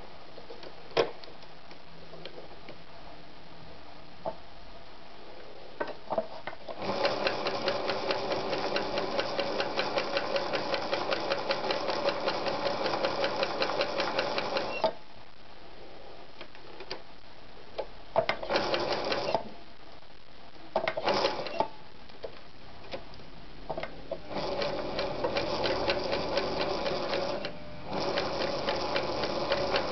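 Veritas 8014/4143E electronic sewing machine stitching a buttonhole through denim in stop-start runs. A click about a second in as the stitch selector dial is turned, then a fast, even stitching rhythm for about eight seconds, a pause with a few short bursts, and a final longer run broken by a brief stop just before the end.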